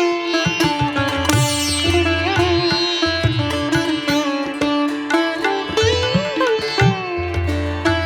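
Indian classical-style instrumental music: a plucked string melody with notes that bend and glide in pitch, over a low drone.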